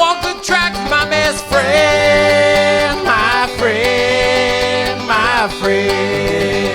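Live folk song: a voice singing long held notes with vibrato over plucked banjo accompaniment.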